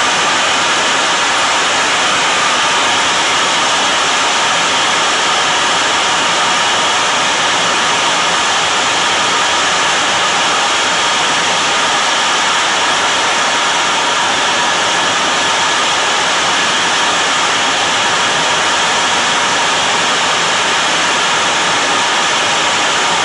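Steady rushing noise inside an F-14 Tomcat's cockpit in flight: jet engine and airflow noise heard through the canopy, even and unchanging.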